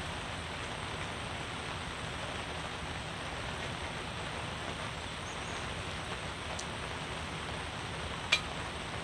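Steady hiss of rain falling on a fabric canopy and wet ground, with one sharp click about eight seconds in.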